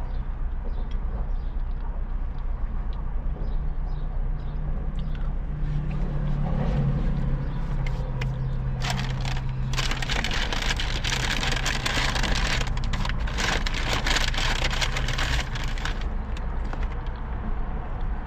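A paper food wrapper crinkling loudly with rapid crackles for about seven seconds, starting about nine seconds in, over the steady low rumble of a car.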